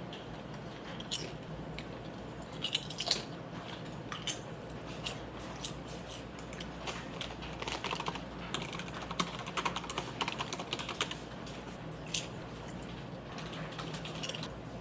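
Typing on a computer keyboard: irregular key clicks, coming thickest in a run past the middle.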